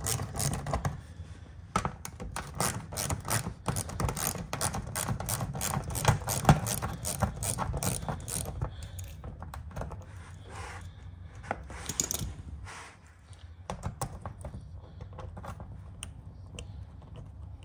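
Small hand ratchet with a 7mm socket clicking rapidly as it backs out the bolts holding a car's plastic under tray. The clicking thins out after about twelve seconds.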